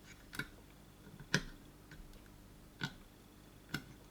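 Four light clicks and taps, irregularly spaced, from hand soldering on a circuit board: the soldering iron and solder touching the component legs and pads.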